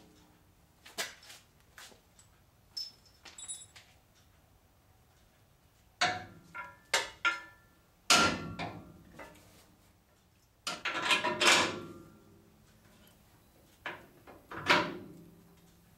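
Irregular metal knocks and clanks in short clusters, some ringing briefly, as a trailing arm's rubber bushing is hammered and worked into its mount on a rear axle.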